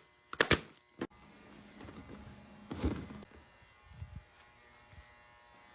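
Two quick, sharp shots close together from a pneumatic upholstery staple gun driving staples through vinyl into a seat board, then a lighter click and a dull knock of the seat being handled.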